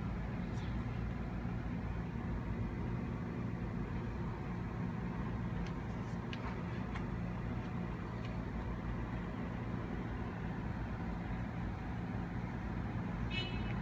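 Steady low mechanical hum of background noise, with a few faint clicks and a brief high squeak near the end.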